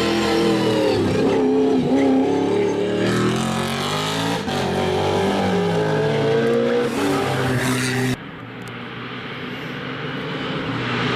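Naturally aspirated 4.4 V8 of a BMW Z4 GT3 race car at full racing speed, its note rising and falling as it revs through gear changes. About eight seconds in, the sound drops abruptly to a quieter, more distant engine note that grows louder again toward the end.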